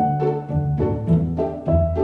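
Background music: short plucked and bowed string notes moving in a steady rhythm over a low bass line.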